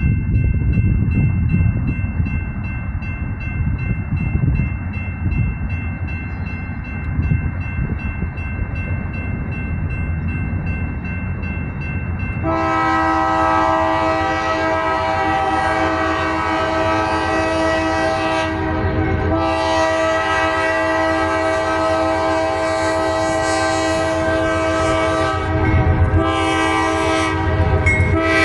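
Low rumble of a passing train. About twelve seconds in, the locomotive's Nathan K5LA five-chime air horn starts blowing loud, held blasts. There is a short break partway through and a few quick breaks near the end.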